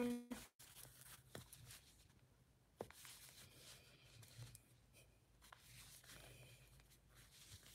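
Near silence: room tone with faint soft rustling and a few light ticks from hands working chunky yarn with a crochet hook.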